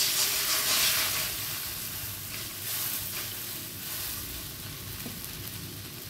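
Coconut milk poured into a hot nonstick wok, sizzling: a dense hiss, loudest as the pour begins, that slowly dies down as the milk spreads and cools the pan.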